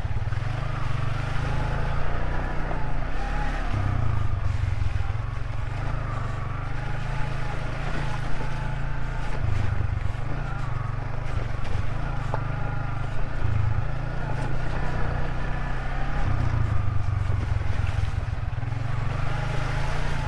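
Yamaha Vixion motorcycle's single-cylinder engine running under way, its pitch drifting up and down with the throttle, under a heavy wind rumble on the helmet microphone.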